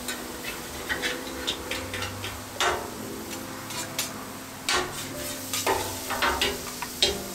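Hibachi spatula and fork clicking and scraping against a hot steel griddle top in irregular taps while turning and pushing searing scallops, with food sizzling underneath.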